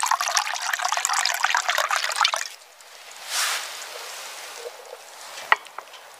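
Red wine poured from a bottle into a wooden cup, a trickling pour that stops sharply about two and a half seconds in. A single short knock follows about five and a half seconds in.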